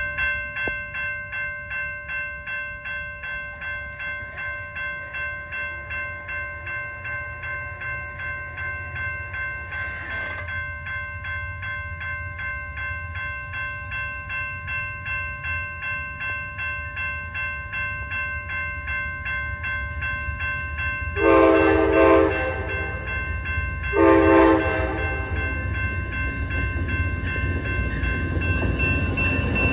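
Grade-crossing warning bell ringing steadily, about two strokes a second, as the Amtrak Texas Eagle approaches with a growing rumble. Its locomotive horn sounds two blasts, a little over 20 seconds in and again a couple of seconds later.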